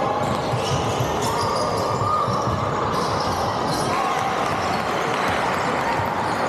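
Basketball dribbled on a hardwood gym floor during play, with short high squeaks and indistinct voices in a large, echoing sports hall.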